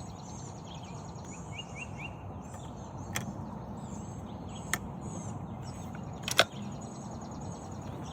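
Small birds chirping and singing over a steady outdoor background hush, with three short sharp cracks about three, four and a half and six seconds in, the last the loudest.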